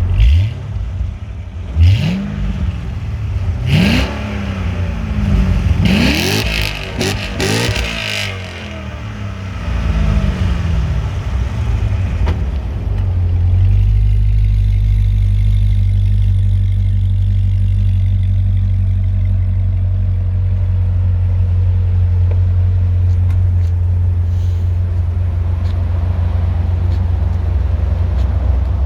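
Stock sports car engine revved in quick blips, about six in the first eight seconds, each rising and falling in pitch, then settling to a steady, deep idle.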